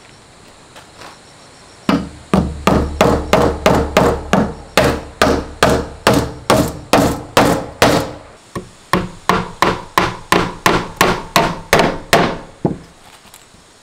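A hammer driving nails into wooden desk-top planks: a quick, steady run of blows, about two or three a second, with a short pause just past the middle.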